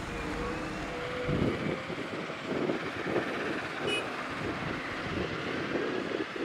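Diesel engines of heavy quarry machinery running, with wind on the microphone: a Scania dump truck moving off, then a Caterpillar 972M XE wheel loader driving with a loaded bucket, its sound rising and falling unevenly. There is a short click about four seconds in.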